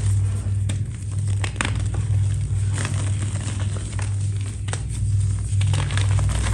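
A crisp, brittle material being crumbled and snapped by hand: irregular crackling and crinkling crunches, over a steady low hum.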